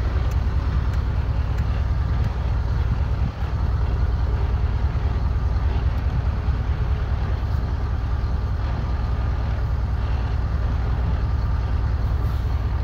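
A 1993 GMC 2500's 6.5-litre turbo-diesel V8 idling steadily with the truck in four-low, crawling along a trail on idle alone without stalling. The engine's low rumble holds even throughout, with a brief dip about three seconds in.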